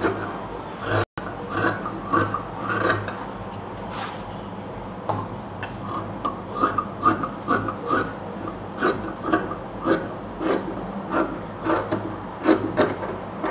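Large fabric shears cutting through blouse cloth on a wooden table: a run of rasping snips as the blades close, each stroke short, sparse at first and then about two a second.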